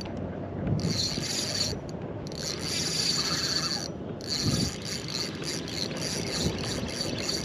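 Fishing reel working as a hooked fish is fought, a strong-running catfish: the reel grinds and ratchets in spurts of about a second with short pauses, then ticks rapidly through the second half.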